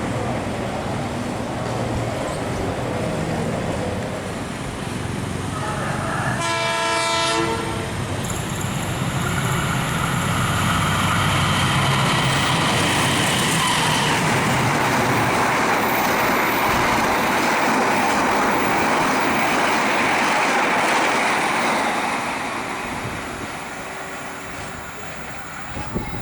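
A train passing: the locomotive sounds its horn once for about a second and a half, then the cars run by with a loud, steady rush of wheels on the rails that fades away near the end.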